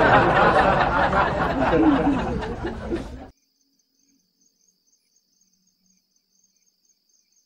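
Girls laughing over a loud rushing noise, which cuts off suddenly about three seconds in; after that only a faint high steady whine is left.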